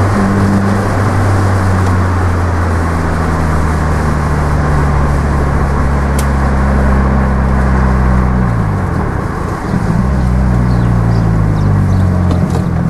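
Toyota Yaris T Sport's four-cylinder engine running through a custom exhaust, droning steadily under way. About eight and a half seconds in, the revs fall and then climb back, as at a gear change.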